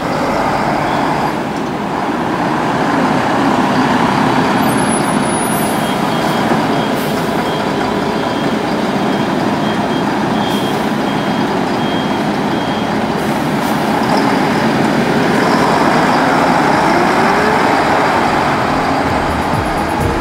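Single-deck diesel city bus pulling away and driving past, its engine running under load, with road and traffic noise.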